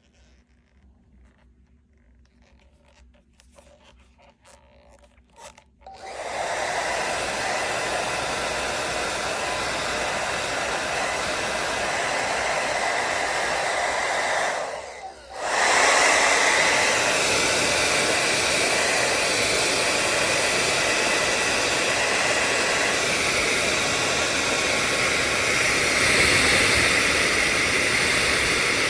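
Revlon Turbo 1875-watt ionic hair dryer switched on about six seconds in, blowing with a loud, steady rush of air and motor. Near the middle it cuts out for about a second, then comes back on a little louder and runs steadily. Before it starts there are only faint handling clicks.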